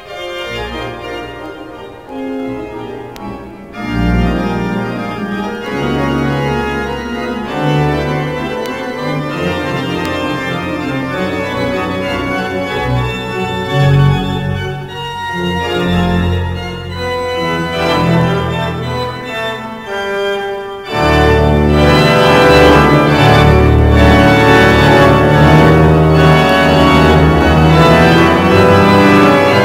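The Eton College Chapel pipe organ playing sustained chords: softly at first, fuller from about four seconds in, then a sudden swell to full organ about 21 seconds in.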